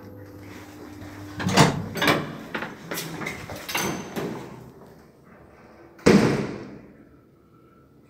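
Elevator doors clattering with a run of sharp knocks and rattles, then shutting with one loud bang about six seconds in.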